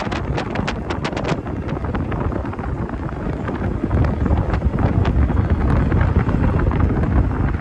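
Wind buffeting the microphone on a moving open golf cart, over a low rumble of the ride on pavement. A quick run of light clicks in the first second and a half, and a few scattered clicks later.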